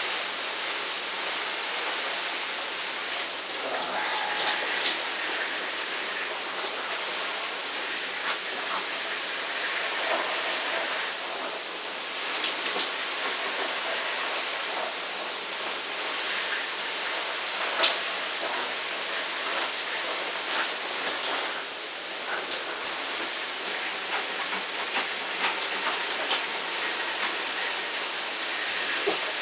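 Shower running: a steady hiss of spraying water, with one sharp tap about eighteen seconds in.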